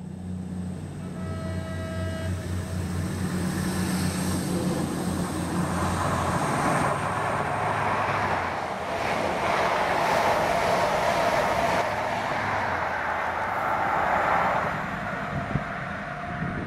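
HST passing at speed: the diesel engine of the leading Class 43 power car humming steadily, a short horn note about a second in, then the loud steady rush of the coaches going by on the rails.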